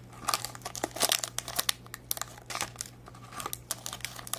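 Clear plastic lollipop and candy wrappers crinkling as hands sort through them, in dense, irregular crackles.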